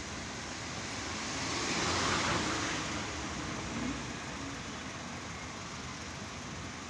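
Street traffic noise, with a road vehicle passing that swells to its loudest about two seconds in and then fades into the steady traffic hum.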